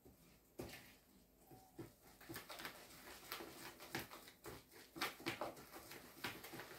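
Wire whisk stirring a thick egg-and-flour batter in a plastic bowl: faint, irregular taps and clicks of the wires against the bowl, about two a second.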